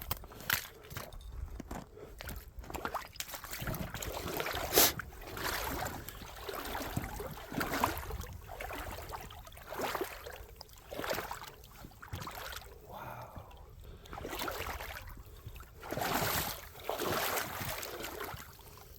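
Footsteps on wet creek gravel and rocks, slow uneven steps about one a second, with water sloshing and squishing underfoot.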